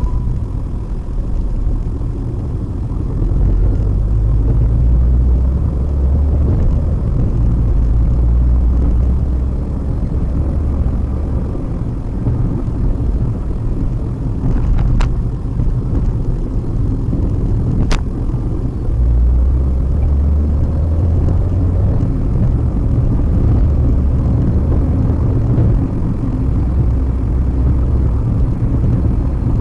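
Steady low rumble of road and engine noise inside a moving Maruti Suzuki WagonR, picked up by the dashcam in the cabin, swelling and easing a little. Two sharp clicks come about halfway through.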